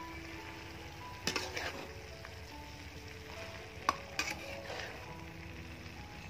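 Beef and cauliflower sizzling steadily in a metal wok as a flat metal spatula tosses them, scraping and clacking against the pan a few times.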